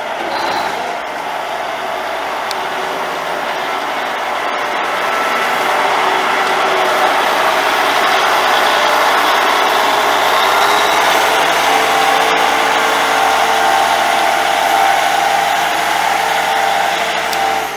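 Case IH 9370 Steiger tractor's Cummins NTA-855 six-cylinder turbo diesel engine running, growing louder over the first six seconds or so and then holding steady.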